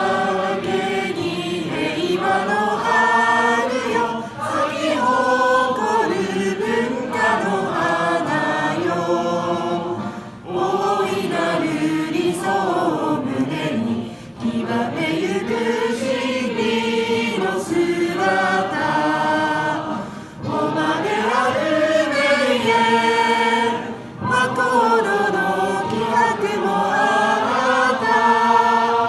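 A group of adults singing a school song together in unison, in phrases of about four seconds each with short breaks for breath between them.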